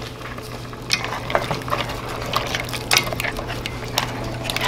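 A spoon stirring a seafood stew of tomato, clams and squid in a stainless steel pot: irregular clicks and scrapes, starting about a second in, over a steady low hum.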